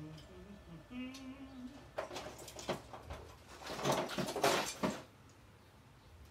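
Brief wordless humming, then a run of rustling and clattering knocks from things being shifted around while searching for a multimeter, loudest about four to five seconds in.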